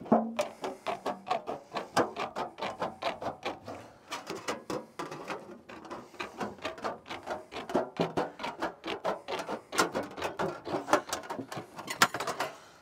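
Hand-held aviation snips cutting a circle out of a flat piece of painted sheet metal: a quick, uneven run of short metallic snips, several a second, as the blades bite around the marked line.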